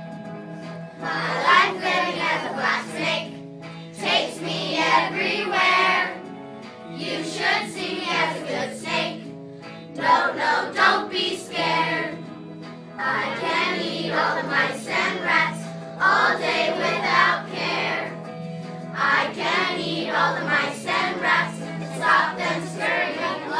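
A class of children singing together along with a backing track, in sung phrases a couple of seconds long over a steady low note.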